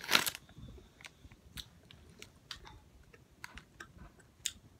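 A plastic sweet packet crinkling briefly at the start, then faint scattered clicks and mouth sounds of Warheads chewy sweets being chewed.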